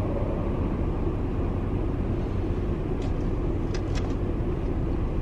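Car running, heard from inside the cabin: a steady low rumble, with a few faint clicks about three to four seconds in.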